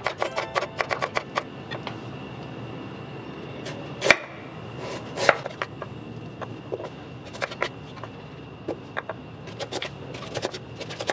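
Kitchen knife cutting on a wooden cutting board: a quick run of cuts through shallots at first, then slower single strokes slicing a young coconut heart, with two louder cuts about four and five seconds in.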